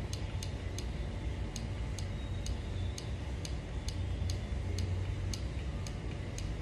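Repeated sharp clicks from a small handheld gadget, about three a second and slightly uneven, as it is handled while someone tries to switch it off.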